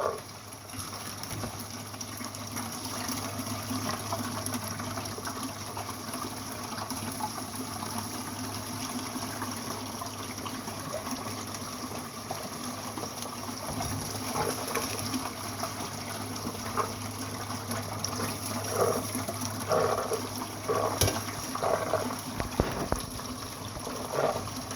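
Water from a recirculating pump running steadily through a sluice box header and down the sluice, over a constant low pump hum. In the second half come a run of short, louder bursts as material is fed into the header.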